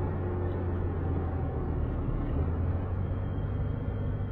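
Steady engine and tyre noise from inside a moving car, a low hum under an even road rumble.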